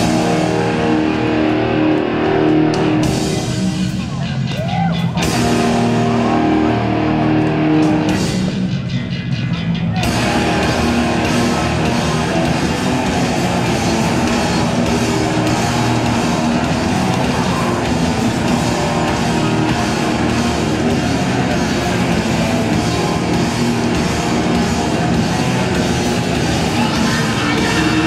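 Hardcore punk band playing live, loud and distorted. For the first stretch a guitar-and-bass riff carries it, with two short breaks. About ten seconds in the full band comes in with drums and cymbals, dense and loud.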